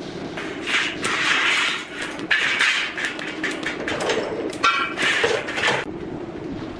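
Electric arc welding a stainless steel tube to a stainless steel cup: the arc crackles and sizzles in several short bursts, tack welds at the joint.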